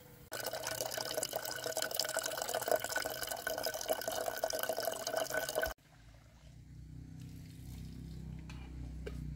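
A thin stream of water from a bamboo pipe pours and splashes into a metal kettle, filling it with a steady ringing splash. It stops abruptly a little before six seconds in.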